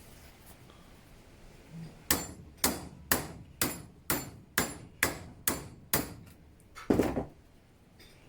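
Hammer blows on a small metal hinge to bend it into a bracket: nine even, sharp strikes about two a second, then one heavier blow near the end.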